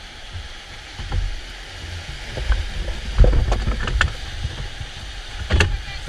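Whitewater rapid rushing around an inflatable raft, with water slapping and splashing against the hull in irregular thumps that come thicker from about a second in.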